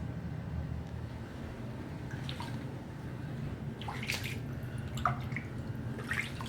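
Water dripping and splashing in a flooded room: a few separate sharp drips or splashes over a steady low rumble.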